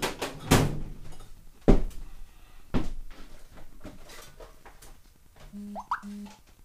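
Metal tools clattering and clunking in a steel toolbox drawer as it is rummaged through, with several sharp knocks in the first three seconds, then quieter handling. Near the end come two short squeaky chirps.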